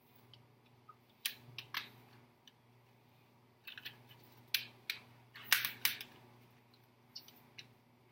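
Handling of a CD album's booklet and packaging: scattered sharp clicks and short rustles of plastic and paper, busiest about halfway through, over a faint steady hum.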